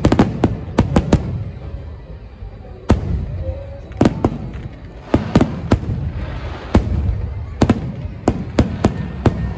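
Aerial fireworks bursting with sharp bangs: a rapid cluster of bangs at the start, then single bangs and short volleys about every second.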